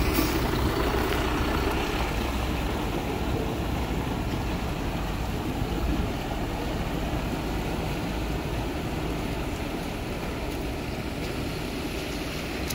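Military truck's engine running as it drives past close by through shallow floodwater, tyres churning the water, then pulling away so the sound slowly fades.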